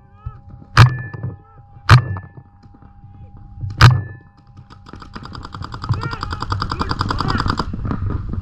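Paintball markers firing: three loud single shots a second or two apart, then a quieter rapid burst of fast, evenly spaced shots lasting nearly three seconds that cuts off suddenly.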